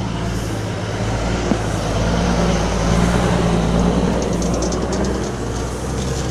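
A 23-90 Baker steam traction engine running under load, belted to a Baker fan: a steady, loud roar with a low hum. A brief run of rapid clicking comes about four seconds in.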